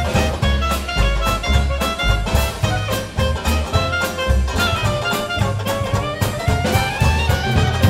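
Traditional jazz band playing live: a clarinet plays the melody over banjo, bass and drum kit keeping a steady swing beat.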